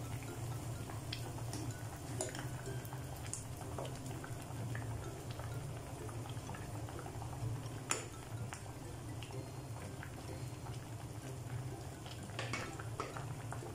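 A large pot of beef shank soup with kangkong and green chillies at a rolling boil, bubbling and popping steadily, with one sharper click about eight seconds in.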